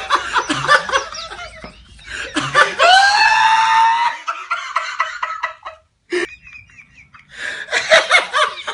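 Men laughing in quick bursts, with one long, high-pitched held laugh partway through. The sound drops out briefly past the middle, then the laughing starts up again.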